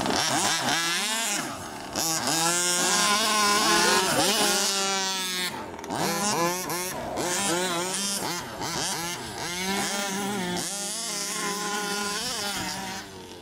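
Gasoline two-stroke engine of an HPI Baja 1/5-scale RC buggy revving up and down over and over under the throttle, its pitch rising and falling in quick sweeps. A steadier, lower engine note runs beneath it for long stretches.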